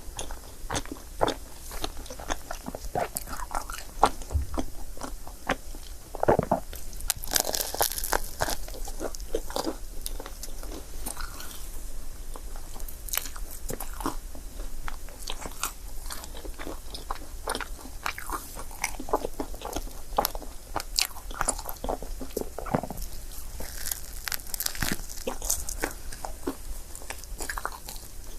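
Close-miked eating sounds of a person biting and chewing a crepe, with a steady stream of short, moist mouth clicks.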